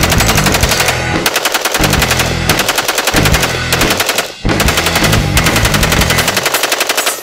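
AR-15 rifle with a Slide Fire bump-fire stock firing in rapid, machine-gun-like strings: several long runs of shots with brief breaks between them, stopping just before the end. The bump-fire stock lets the semi-automatic rifle fire at a near full-auto rate.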